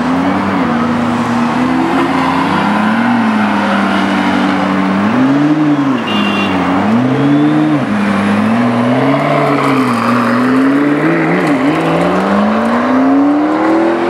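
McLaren P1's twin-turbo V8 revving in a run of short blips that rise and fall as the car pulls out, then one long rising pull near the end as it accelerates away.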